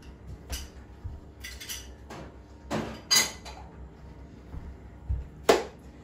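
Dishes and kitchen utensils clinking and clattering as they are handled and set down, a string of separate sharp knocks, the loudest near the end.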